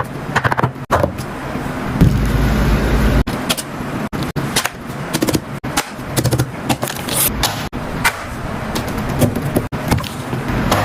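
Fidget toys being handled: a quick run of clicks, taps and rattles, with a heavy low rumble about two seconds in.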